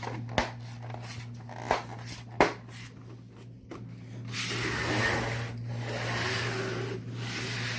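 Plastic fan cover being handled and clipped into place: three sharp clicks in the first few seconds, then rubbing and scraping of plastic for the last three seconds or so.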